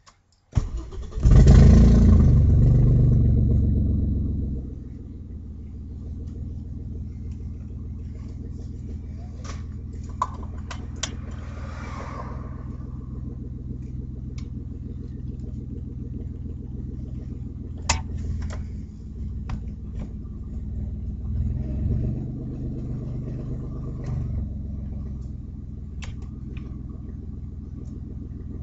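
Audi A4's 2.8 12-valve V6 cranked and started about a second in, running loudly for a few seconds before settling into a steady idle, with a brief rise in revs near the end. It has a tractor-like rumble from an exhaust leak just after the flex pipe and ahead of the catalytic converter, which leaves one bank's exhaust open.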